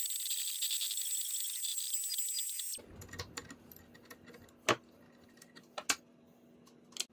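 CNC router spindle running at a high pitch as a small end mill cuts through plywood. The sound stops abruptly about three seconds in. A steady low hum follows, with a few sharp metallic clicks as the collet nut and end mill are handled at the spindle.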